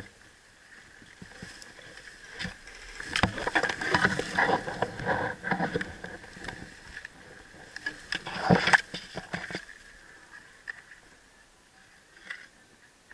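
Irregular rustling and scraping close to the microphone with a few sharp knocks, busiest in the middle and dying down near the end: the sound of an airsoft player moving with their gear.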